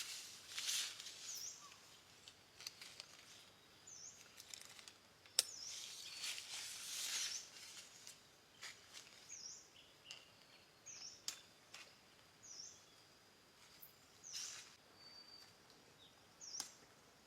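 Jungle ambience: a bird gives short, high chirps that dip and rise in pitch, repeated at irregular intervals. Scattered rustles and a sharp click about five seconds in sound over it.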